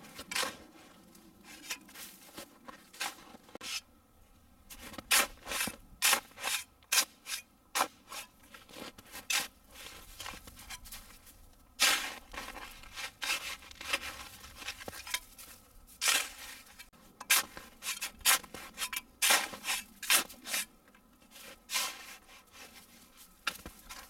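A hand digging tool scraping and chopping into hard, icy snow: irregular strokes of crunching and scraping, several in quick runs with short pauses between.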